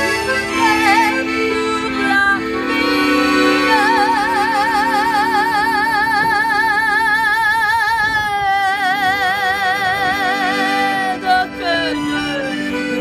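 A woman singing over sustained piano-accordion chords. In the middle she holds two long notes with a wide, even vibrato, the second a little lower than the first.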